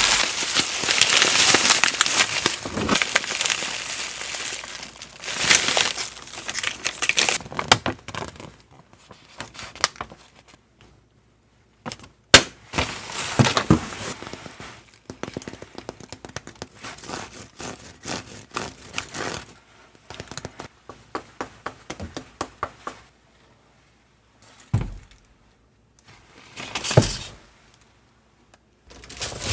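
Kitchen food-prep handling: several seconds of rustling and crinkling, then scattered clicks and light knocks, with one sharp click about twelve seconds in and two dull knocks near the end.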